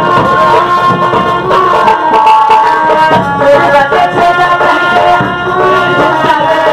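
Live Bhojpuri nautanki folk music, instrumental: a hand drum beats a steady rhythm under a held, wavering melody line.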